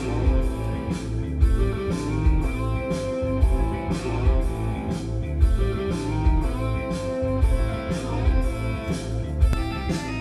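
Guitar music with a heavy, pulsing bass line, played through a home hi-fi loudspeaker and recorded from beside the speaker rather than in front of it. The room's standing waves come through, which is the boom this test is listening for.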